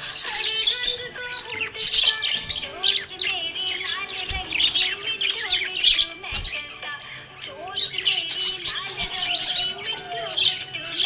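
Budgerigar chirping and warbling in a quick, busy stream of high chirps, easing off briefly about seven seconds in, over background music.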